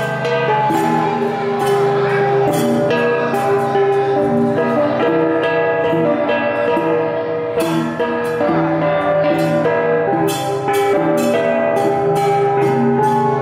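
A cồng chiêng gong ensemble playing: several tuned gongs struck over and over, their pitched tones ringing on and overlapping into a continuous metallic chord.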